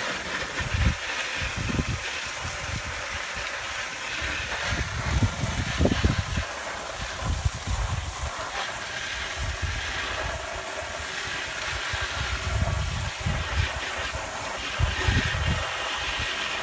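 Steady hiss of water spraying, with irregular low rumbles and thumps on the microphone.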